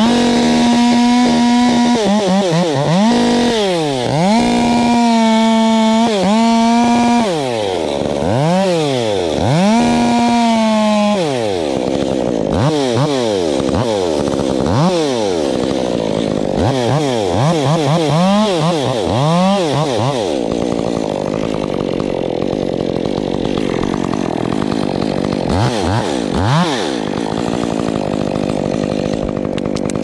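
Top-handle chainsaw revving hard, the throttle let off and squeezed again over and over, with stretches held at full speed in between. In the last third it runs steadily at a lower, rougher pitch under load as it cuts through the tree trunk.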